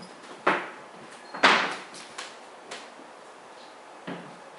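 Kittens scrambling in a pop-up mesh play tunnel, its fabric and wire frame rustling and knocking on a wooden floor. There are two loud knocks about half a second and a second and a half in, then a few lighter ones.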